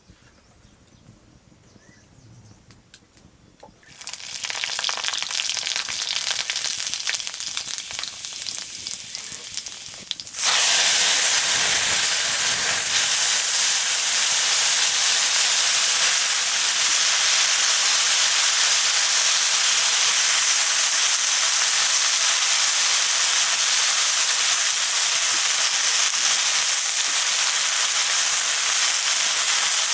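Food frying in hot oil: a sizzling hiss that starts about four seconds in, jumps suddenly louder about ten seconds in, and then stays steady.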